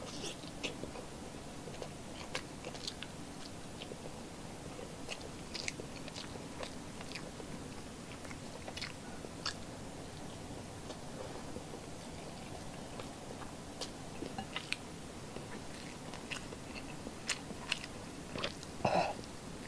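Close-up chewing and biting of soft milkfish belly and rice, with many short sharp mouth clicks scattered throughout. A louder short sound comes near the end.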